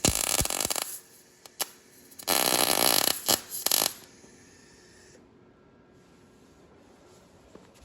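Wire-feed MIG welder arc crackling in two short bursts of a second or two each, welding a steel engine mount; a weld being laid while the wire speed is still being dialled in.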